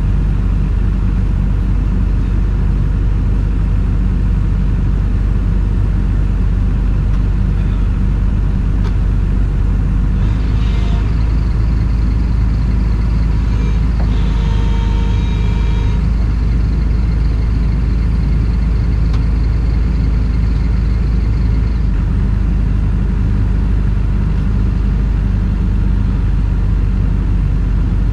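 Excavator's diesel engine running steadily, with a deep continuous rumble. A few brief high squeaks come about halfway through.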